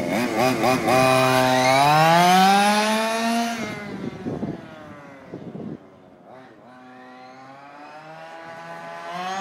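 Fifth-scale RC car's small two-stroke gas engine revving up, dropping off and revving again as the car runs, with popping. The engine is tuned too lean: it is drying out, not getting enough fuel, and is close to seizing.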